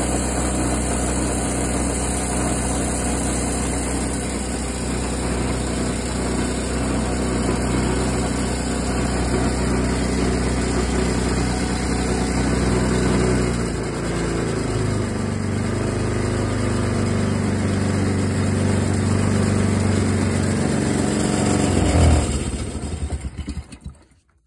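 Small gasoline engine of a homemade cable winch running steadily, its pitch shifting about halfway through. Near the end it is shut off and chugs down to a stop.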